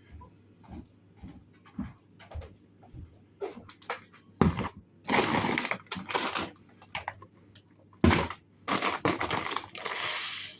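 Handling of packets of poultry feed supplements: several light knocks and clicks, then two long stretches of loud crinkling and rustling of packaging.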